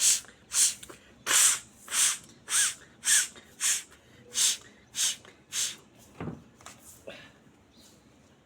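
Rapid, forceful blasts of breath out through the nose, about ten sharp blows roughly two a second, clearing the leftover salt water from the nasal passages after jal neti nasal rinsing. The blows stop about six seconds in with one last, lower and weaker blow.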